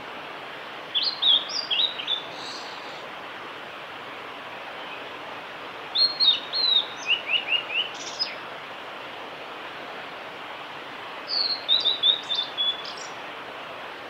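Male blue-and-white flycatcher singing: three song phrases of quick, sharply slurred whistled notes, about five seconds apart, over a steady background hiss.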